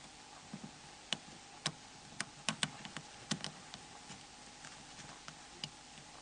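Faint, irregular small clicks and taps of plastic and metal phone parts being worked by hand: a DC plug used to push the DC jack out of a Nokia N73's B cover. The clicks come thickest in the first half and thin out towards the end.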